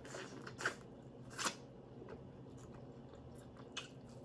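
Faint chewing with a few short, wet mouth sounds, the loudest about a second and a half in.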